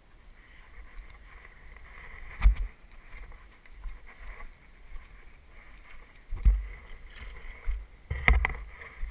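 Mountain bike rolling fast down a dirt trail, heard from a helmet-mounted camera: steady tyre and wind rumble, with three loud thuds as the bike hits bumps and lands, about two and a half, six and a half and eight seconds in.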